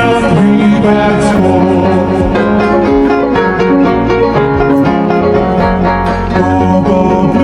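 Upbeat instrumental backing music for a children's Hindi nursery rhyme, with plucked strings and keyboard playing a steady rhythmic tune.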